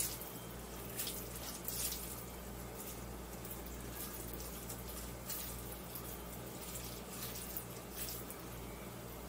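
Hands squeezing and rolling a wet, egg-bound rice mixture into balls in a bowl: soft, sticky squelches now and then, over a steady low hum.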